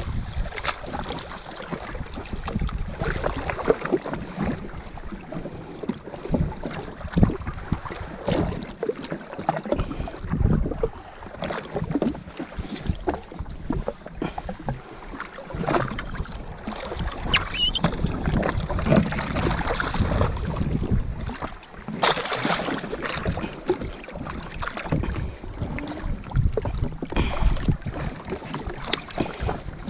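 Gusty wind buffeting the action-camera microphone, with water slapping unevenly against the jet ski's hull.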